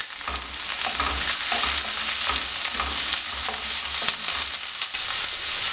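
Sliced shallots, green chillies and curry leaves sizzling steadily in hot oil in a nonstick wok, with a spatula stirring and scraping them in irregular strokes as they are sautéed.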